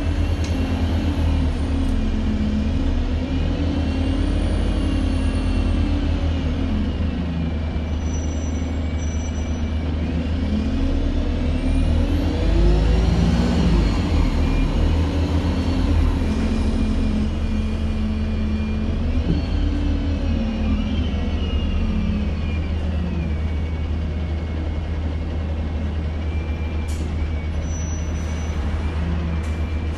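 Alexander Dennis Enviro200 MMC bus under way, heard from inside: its diesel engine and drivetrain whine climb and drop in pitch several times as the bus speeds up and slows, loudest about halfway through.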